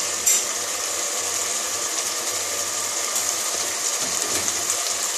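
Chicken masala sizzling steadily in its separated oil in a pot on a gas burner, a light knock right at the start.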